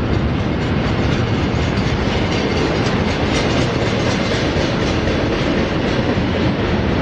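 Double-stack well cars of a freight train rolling past at track speed: a steady rumble and rattle of steel wheels on the rails, with light irregular clicks.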